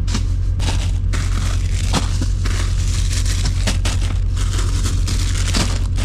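Plastic-wrapped bags of radishes crinkling and rustling as they are gathered up by hand and dropped into plastic crates, with a few sharp knocks, over a steady low hum.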